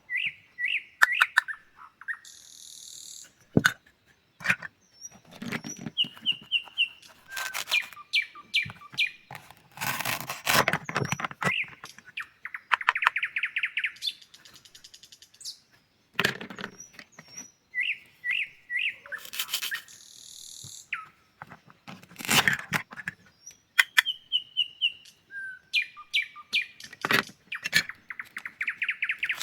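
Bird chirps and short trills in a repeating pattern, interleaved with louder short rasping bursts of a knife cutting through fruit and vegetables.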